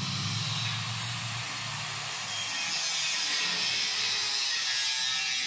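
Handheld electric power tool working on the steel of a plant rack: a steady, high hissing noise.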